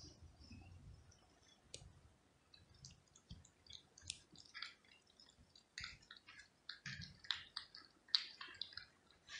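A cat eating chunks of wet food: faint, irregular wet chewing clicks and smacks, growing thicker from about two and a half seconds in.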